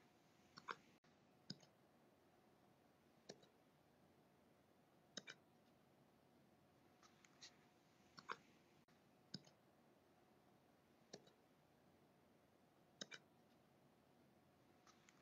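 Golden retriever puppy hiccuping: short, faint, clicky hics roughly every one to two seconds, some coming in quick pairs.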